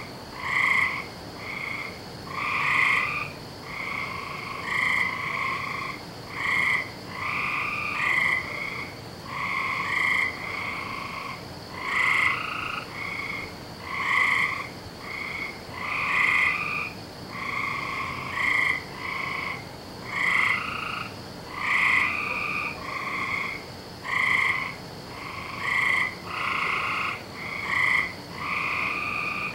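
A chorus of frogs croaking: short calls from several frogs overlapping one after another, about one a second without a break, over a faint steady high tone.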